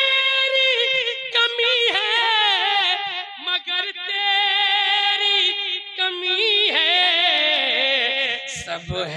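A man singing a naat solo, drawing out long melismatic notes with wavering ornaments between the words of a line.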